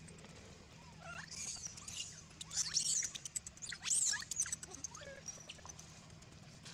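Young long-tailed macaque giving a run of high-pitched squeals, with the loudest about halfway through.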